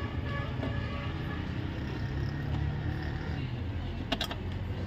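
Steady low vehicle rumble, with a quick cluster of sharp metallic clicks about four seconds in from tools at work on a car door's window regulator as its fixings are tightened.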